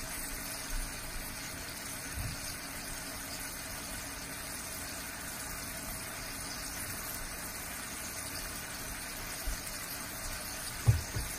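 Chicken pieces sizzling in oil in a frying pan, a steady even hiss. A few low thumps near the end.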